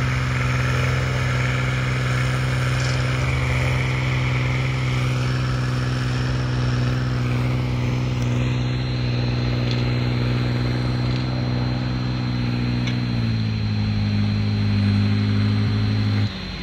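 Landini Mythos tractor's diesel engine running steadily under load while pulling a cultivator. The engine note shifts slightly about two-thirds of the way through, and the sound drops away abruptly near the end.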